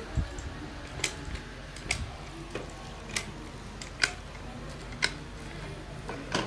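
Cartridges being pressed one by one into a magazine by hand, each round seating with a sharp metallic click, about one a second.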